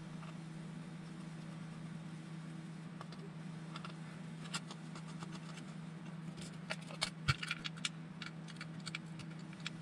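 Light clicks and taps of small tools and metal parts being handled at a workbench, scattered at first and coming thicker about two-thirds of the way through, with one sharper knock. A steady low hum runs underneath.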